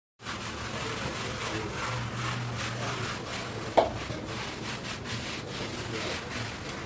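Repeated hand-scrubbing strokes rubbing over a hard surface, with a single knock about four seconds in.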